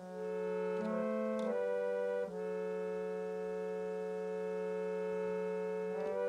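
Harmonium (pump reed organ) playing sustained chords over a held low note. The chord changes a few times, with a quick run of notes about a second in.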